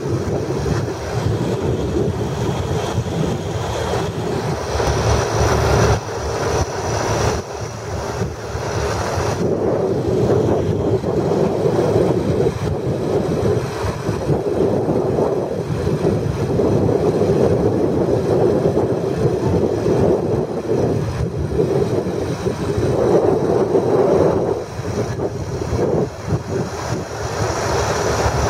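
Antique clover huller running, driven by a long flat belt from an antique tractor's engine, with a steady mechanical din throughout.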